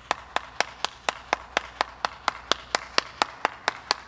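One person clapping their hands at a steady pace, about four claps a second.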